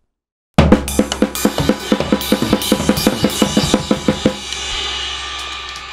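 A band playing loud on drum kit and guitar, starting suddenly about half a second in with fast, even drum hits. About four seconds in the hits stop on a crash cymbal that is left ringing with the guitar and fades out.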